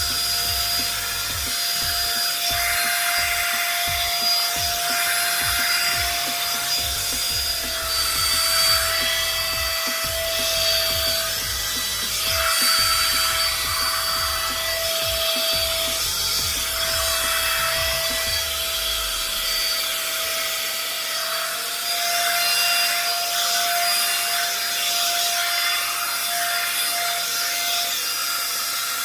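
One-step hair dryer and styler (hot-air brush) running: a steady motor whine under a rush of air, swelling with a rubbing sound every few seconds as the brush is drawn through hair.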